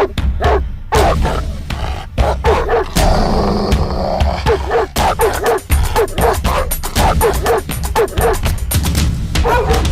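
Rapid, repeated dog barks over loud music with a heavy bass and many sharp hits.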